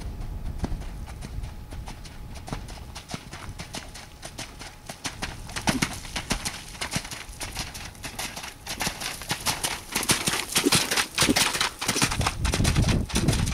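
Horse's hoofbeats splashing through puddles in a waterlogged sand arena, a quick rhythmic clatter that grows louder as the horse comes close and passes. A low rumble joins near the end.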